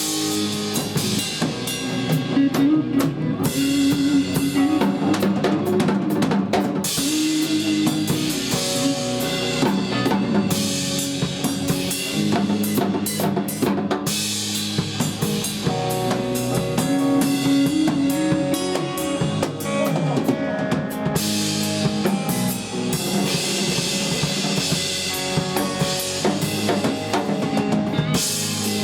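Live rock drum kit solo: kick drum, snare and rimshots played hard and busy, with stretches of cymbal wash. Held low notes from the band sound underneath.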